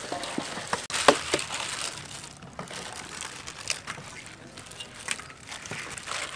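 Plastic-gloved hands tossing raw chicken legs in flour: the gloves crinkle and the meat squishes, with scattered light knocks, the sharpest about a second in.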